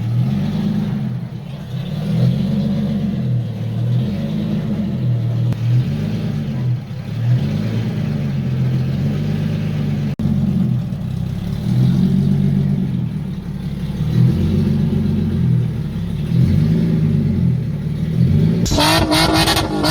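Nissan VQ35HR 3.5-litre V6 idling, its pitch rising and falling again and again with light revs. Near the end a louder, higher-revving engine cuts in suddenly.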